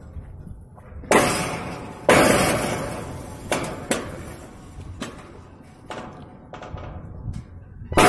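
Metal wire-mesh farm gate clanging and rattling as it is handled: two loud clangs a second apart, each ringing on for about a second, then lighter knocks and rattles, and another loud clang near the end.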